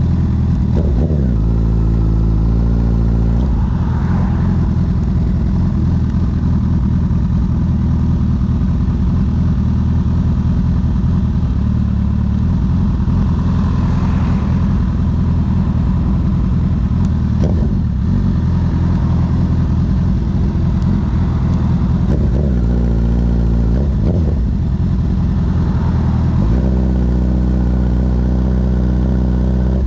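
Honda CB1000R inline-four engine running through an aftermarket CS Racing full exhaust system while being ridden. The engine note is steady for long stretches, with sudden changes in pitch a few times near the start and again near the end as the revs change.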